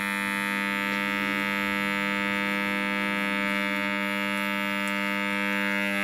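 Two microwave-oven transformers humming with a steady, loud mains buzz as they drive a heavy current through a knife blade, holding it red-hot.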